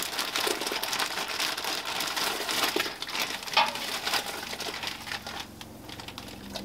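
Plastic bag of brown sugar crinkling as it is shaken and squeezed out over a stockpot. The crackle dies down near the end.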